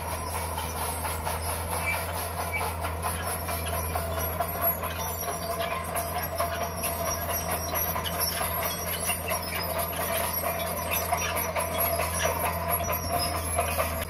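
Komatsu crawler bulldozer working under load, its diesel engine running steadily while the steel tracks clatter and squeal as the blade pushes rock and soil.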